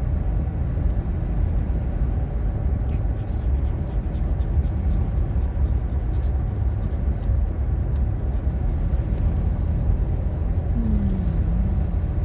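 Steady low rumble of a truck driving on a dirt road, heard from inside the cab, with a few faint scattered ticks.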